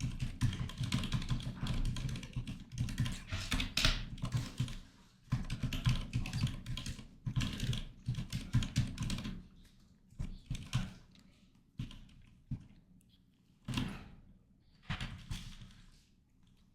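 Typing on a computer keyboard: rapid runs of keystrokes for about the first ten seconds, with a brief pause in the middle, then thinning to a few scattered key presses.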